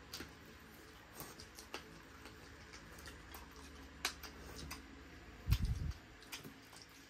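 Close-up eating sounds of chicken curry and rice: scattered soft clicks of chewing and mouth noises. A low thump comes a little past halfway.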